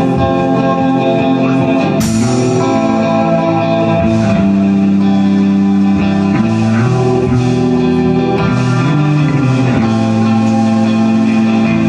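Live rock band playing an instrumental passage: electric guitar over an electric bass line and drums, with a crash about two seconds in.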